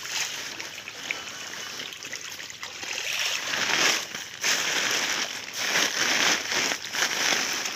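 Water splashing and sloshing as a crowd of fish churns at the surface, fighting over food. It grows louder about three seconds in and comes in uneven surges.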